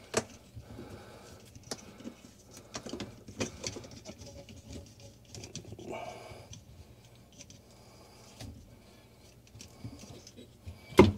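Faint rustling and scattered small clicks of hands wrapping thread-seal (Teflon) tape around the threads of a shutoff valve under a sink, with one sharp knock near the end.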